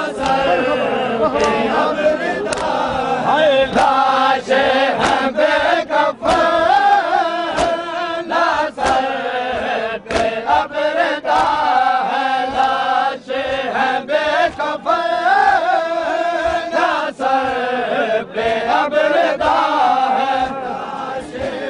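A chorus of men chanting a mourning lament in unison, with sharp hand slaps of matam (rhythmic chest-beating) landing on the beat about once or twice a second.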